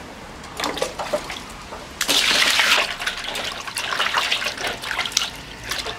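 Water pouring into a stainless steel basin, starting suddenly about two seconds in, then uneven splashing and sloshing as a hand washes ginger and cinnamon bark in it.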